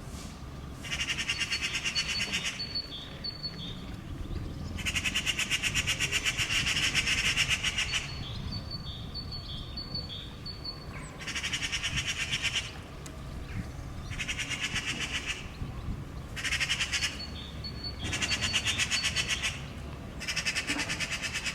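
Eurasian magpies giving their harsh rattling chatter in repeated bouts of a second or two each: the alarm call of a pair mobbing a cat near their fledgling.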